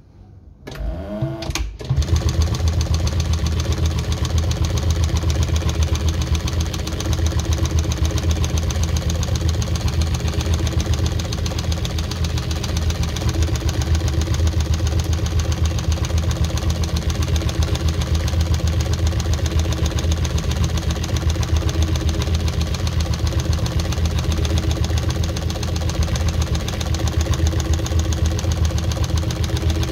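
Singer 114W103 chain stitch embroidery machine starting up about two seconds in, then running steadily with a low hum and rapid, even needle strokes as it stitches through two layers of genuine leather about 2.8 mm thick.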